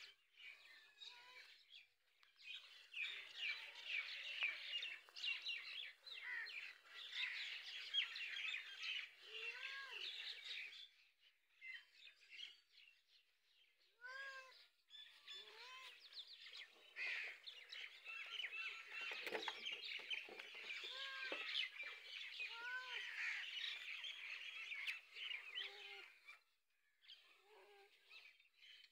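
Many small birds chirping busily, with short rising-and-falling calls every few seconds and two brief lulls, one about midway and one near the end.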